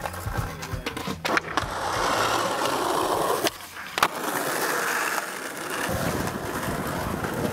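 Skateboard wheels rolling over rough pavement, broken by a few sharp clacks of the board hitting the ground, the loudest about a second in and near the middle. Near the end the rolling turns to a lower rumble.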